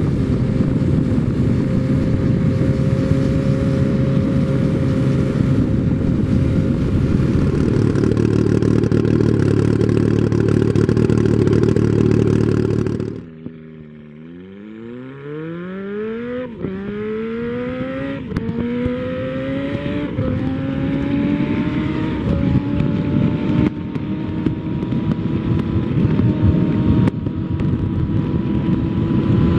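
Turbocharged Yamaha R1 inline-four motorcycle engine. It first runs at a steady high pitch; after a sudden drop in level about 13 seconds in, it accelerates hard from low speed at full throttle, the revs climbing and dropping back at each of several quick upshifts.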